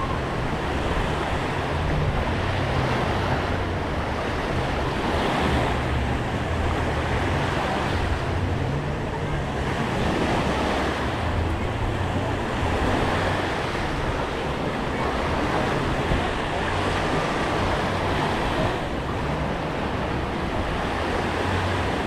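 Small waves washing onto a sandy shore, swelling every few seconds, with wind buffeting the microphone.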